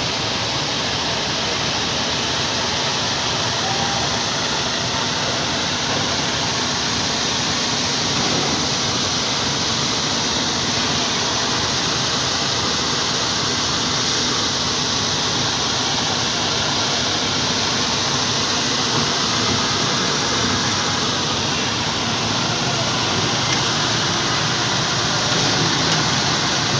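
Steady, even noise of heavy machinery at work: a crawler crane running as it hoists a precast concrete bridge girder.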